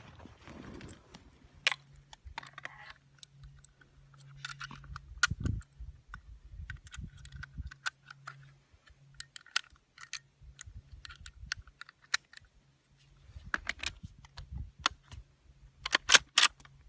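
Scattered clicks and light metallic handling noises from a Savage Axis II bolt-action rifle being reloaded and worked between shots, with a quicker run of clicks near the end.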